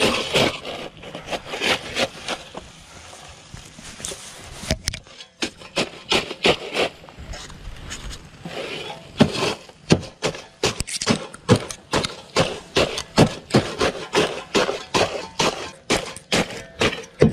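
Steel spade chopping down into a wheelbarrow of water-soaked wood charcoal, crunching and scraping as it breaks the char into small pieces. The strokes are sparse at first, then come quickly, about two or three a second, through the second half.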